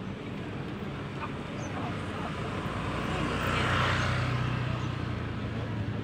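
An engine passing by: its noise swells to a peak about four seconds in with a steady low hum, then fades, over faint background voices.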